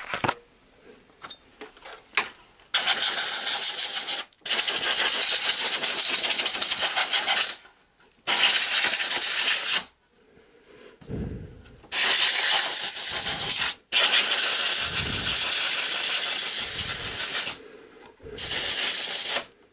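Compressed-air blow gun hissing in a series of long blasts, a few seconds each with short breaks, blowing out an automatic transmission's oil filter. A few low handling knocks fall in one of the pauses.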